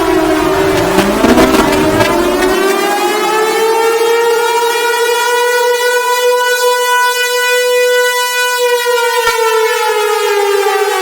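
Civil defence warning siren wailing. In the first two seconds a falling tone crosses a second one winding up from low pitch, then a single loud tone rich in overtones holds and begins to sag in pitch near the end.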